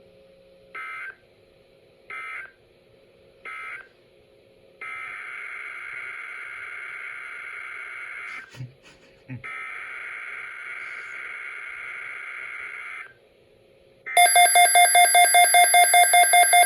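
Emergency Alert System SAME data tones from a NOAA Weather Radio broadcast. First come three short buzzy end-of-message bursts, then two long header bursts announcing the next flash flood watch. Near the end a weather radio receiver's loud alert alarm starts beeping rapidly, about five beeps a second, triggered by the new watch.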